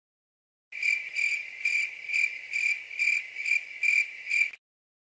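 Cricket chirping sound effect: a high, steady chirp repeated about twice a second, nine times, starting just under a second in and stopping abruptly.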